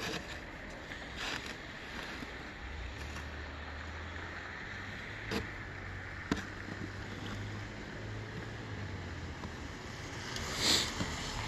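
Snow shovel chipping and scraping at packed snow and ice, with two sharp knocks about five and six seconds in and a louder scrape near the end, over a steady hiss and low hum.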